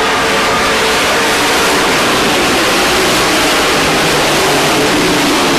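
Engines of several small pickup-style race trucks running hard as they race around a dirt oval: a loud, steady mix of engine noise whose pitch wavers as the trucks pass and turn.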